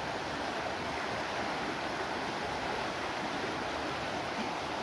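A fast-flowing river running past, a steady rush of moving water with no breaks.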